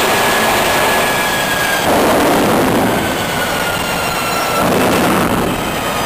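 Dense, loud engine-room noise from a ship's MAN B&W two-stroke main diesel engine running, with faint whines sliding slowly down in pitch.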